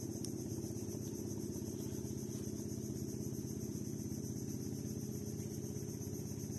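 Small outboard motor on a boat running steadily, a low engine drone with a rapid, even pulse, under a steady high-pitched drone.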